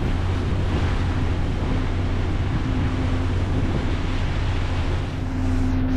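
Passenger ferry running under way: a steady low engine drone, with wind on the microphone and the rush of water along the hull.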